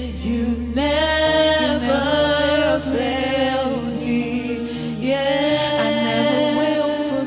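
Worship singing: several voices holding long notes together over steady low accompaniment notes.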